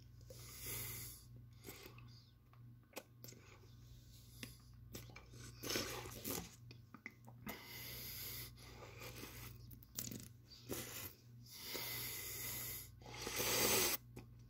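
A man breathing hard, in a run of heavy breaths, with small wet mouth clicks in between as he holds a lollipop in his mouth. These are reactions to the burn of the Toe of Satan, a 9-million-Scoville lollipop.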